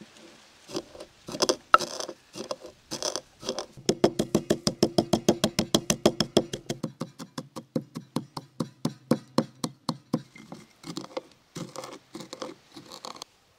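Wooden pestle pounding whole peppercorns and spice seeds in a wooden mortar. First a few uneven strikes, then a quick even run of about five strikes a second, slowing again to scattered strikes near the end.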